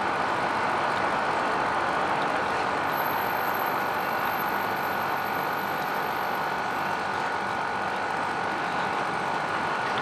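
Steady city traffic noise rising from the streets below, a continuous even hum with no distinct events.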